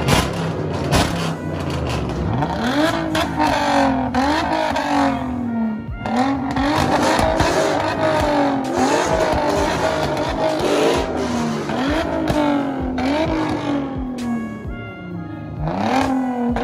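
Hyundai Genesis Coupe engine and exhaust being revved over and over while parked: each rev rises quickly in pitch and falls back, about once every second or two.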